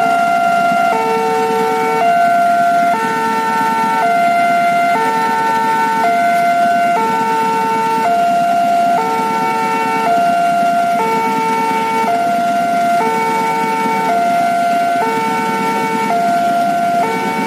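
Railway level-crossing alarm sounding its electronic two-tone chime, switching between two pitches about once a second in a steady repeating pattern: the warning that a train is approaching and the barrier is closed. Idling traffic hums underneath.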